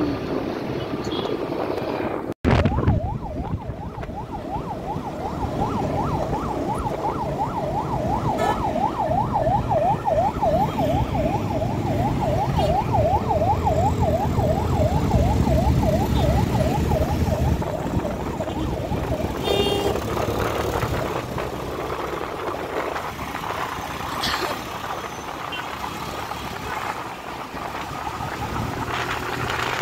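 An emergency-vehicle siren in a rapid yelp, its pitch sweeping up and down about three times a second, over the steady engine and wind rush of a moving motorcycle. The siren stops a little past halfway through, leaving the riding noise and a brief beep.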